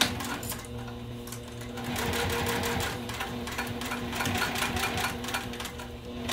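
Juki sewing machine stitching: a rapid, even rattle of the needle over a steady motor hum, topstitching through layered fabric and vinyl. It speeds up for about a second roughly two seconds in, slows, then runs faster again for about two seconds later on.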